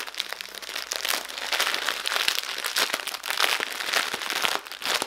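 Small plastic bags of diamond painting drills being handled, with a continuous irregular crinkling and crackling of the plastic.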